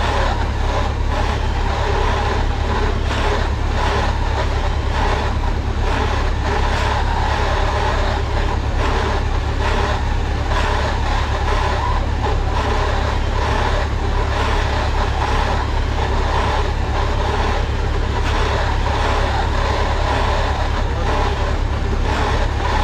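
Farm machinery engine running steadily under constant load, with a strong low hum and no changes in speed.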